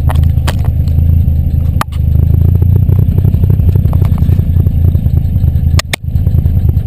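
Wind buffeting and rumbling on a GoPro HERO2's microphone, housed in an open-back case with vacuum plugs over the buttons, while the vehicle drives at speed, with engine noise underneath. The rumble dips briefly about two seconds in and again near the end.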